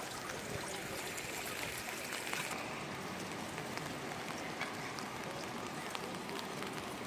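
Steady hiss of rain and traffic on a wet city street, with scattered light ticks.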